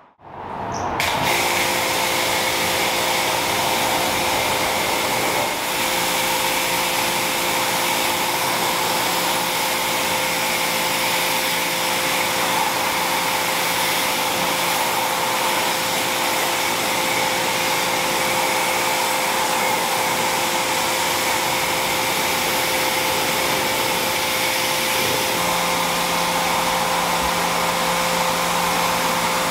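Pressure washer spraying a car's body: a steady hiss of the water jet over the hum of the washer's motor and pump, starting about a second in.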